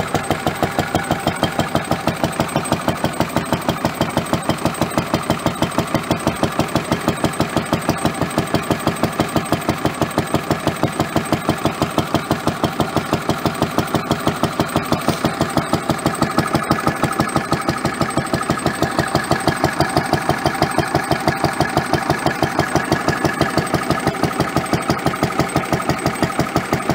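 1945 Lister D single-cylinder petrol stationary engine running steadily with an even, rapid firing beat, driving its dynamo to light vintage lamps.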